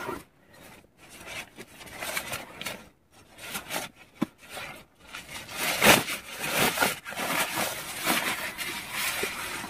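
Synthetic fabric rustling and crinkling as it is handled and folded by hand, with a louder rustle about six seconds in.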